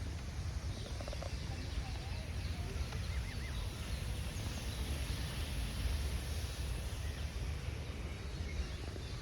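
Garden ambience: a steady low rumble, like wind on the microphone, under a soft hiss, with a few faint bird chirps scattered through it.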